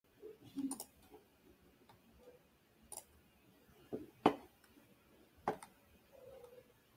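A few separate sharp clicks and light knocks over faint room tone, the loudest about four seconds in.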